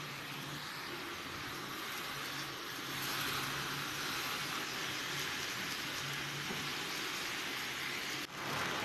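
Marinated chicken cubes sizzling as they fry in a pan: a steady hiss that gets louder about three seconds in.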